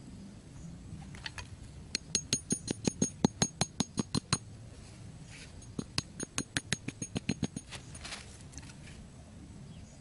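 Hammer tapping a wooden stick of a scissor bird trap into the ground: two runs of quick, light taps with a metallic ring, about six a second, the first lasting about two and a half seconds and the second nearly two seconds.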